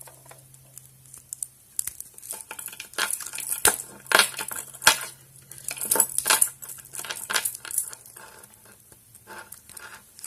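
Small metal clicks, clinks and scrapes as a pick and keys are worked in and around a vintage Yale padlock and the lock is handled. The clicks come irregularly and are thickest in the middle.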